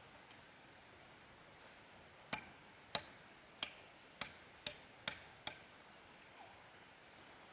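A blade chopping wood: seven sharp strikes about half a second apart, starting a couple of seconds in.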